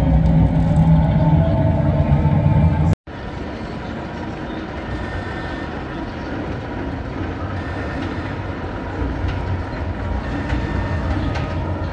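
Roller coaster train running on its steel track: a loud rumble with a strong low hum that cuts off abruptly about three seconds in, followed by a quieter, steady rumble.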